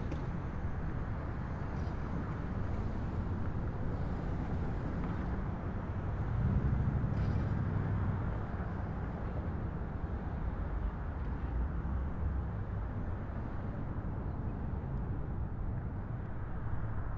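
New York City subway train in motion, heard from aboard the car: a steady low rumble of wheels and motors on the track that swells briefly about six to eight seconds in.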